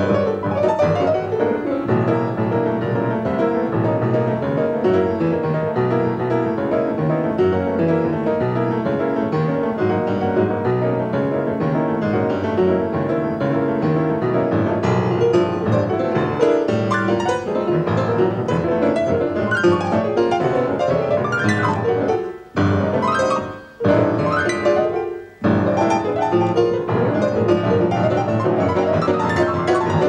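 Solo grand piano played in dense free-jazz style, with fast clustered runs and chords across the keyboard. It breaks off abruptly twice, briefly, about three-quarters of the way through, before resuming.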